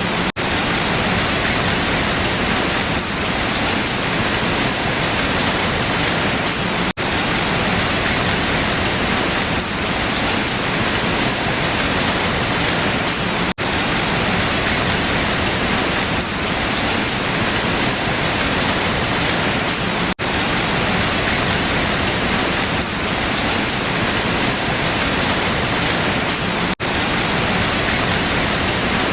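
Steady rain falling on leaves, an even, dense patter that briefly cuts out about every six and a half seconds.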